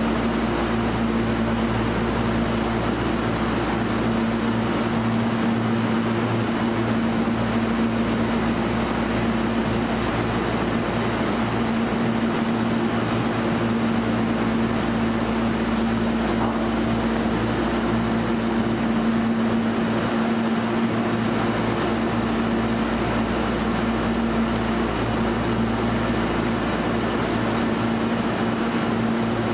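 Steady hum of a Hankyu 1300 series train standing at an underground platform, its air conditioning and electrical equipment running: a low drone with a few steady tones and an even hiss above.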